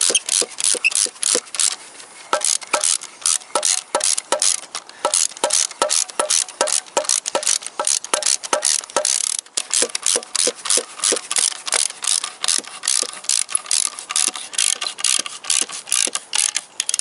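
Ratchet wrench clicking as its handle is swung back and forth, tightening the bolt that holds an engine block heater's support bar, about three clicks a second with a brief pause about nine and a half seconds in.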